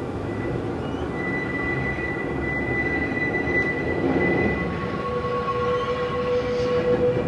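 Former Glenelg H class electric tram 352 running along the track, a rumble that grows louder as it approaches, with a steady thin whine that drops in pitch in two steps.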